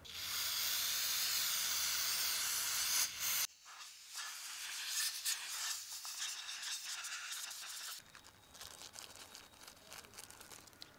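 Aerosol spray can hissing as it cleans the plastic oil filter housing cap: one steady spray for about three and a half seconds, then shorter spurts through the straw until about eight seconds in. After that, quieter crinkling of the plastic bag that holds the new O-rings.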